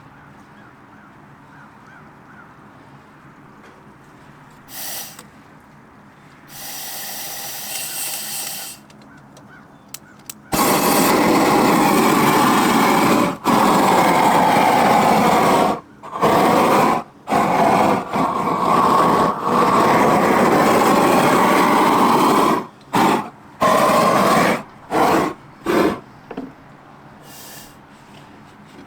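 Small handheld torch hissing, then running in loud blasts that switch on and off abruptly: a long one of a few seconds and then several shorter ones near the end. It is heating foil-backed adhesive flashing so that it will stick.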